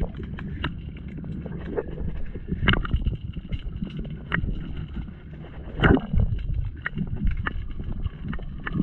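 Muffled sound through a camera held underwater: a low rumble of moving water with irregular clicks and knocks, the loudest about six seconds in.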